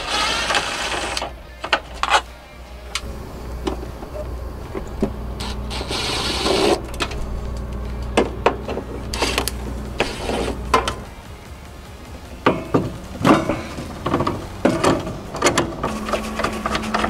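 Three short runs of a cordless drill backing out screws, then a string of clicks, knocks and rubbing from hand work on metal fittings. A low steady hum stops about eleven seconds in.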